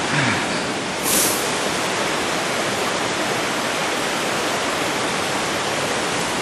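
Shasui Falls waterfall pouring steadily, a constant rush of falling water, with a brief louder hiss about a second in.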